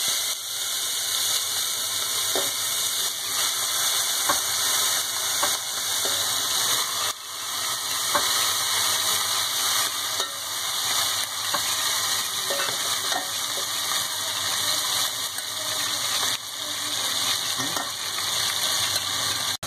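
Marinated chicken sizzling steadily as it fries in hot oil and ghee in a metal pot, while a metal ladle stirs it, scraping and clicking against the pot now and then.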